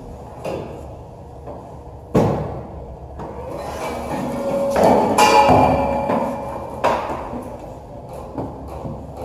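A sharp knock about two seconds in, then a scraping rub that builds up and peaks around five seconds, and another sharp knock near seven seconds.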